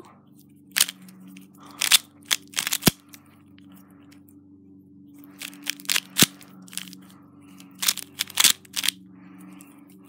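Valk 3 M magnetic speedcube being turned quickly by fingers: irregular plastic clicks and clacks of its layers snapping into place, in quick clusters with a pause of about two seconds near the middle. A faint steady hum runs underneath.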